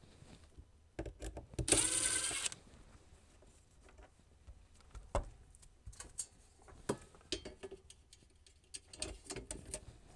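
Cordless drill-driver running briefly, driving a screw into the wooden mounting strip, about two seconds in. After it come scattered light clicks and knocks from handling the screws and the metal bracket.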